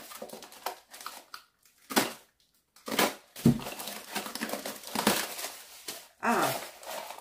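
Packaging crinkling and rustling with a few knocks as a small box of bread-maker accessories is opened and handled. About six seconds in there is a short voice-like sound that falls in pitch.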